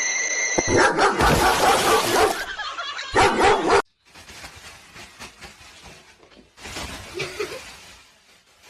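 A dog barking in two loud, rough bursts over the first few seconds; the sound then cuts off suddenly, and a quieter stretch follows with a short call near the end.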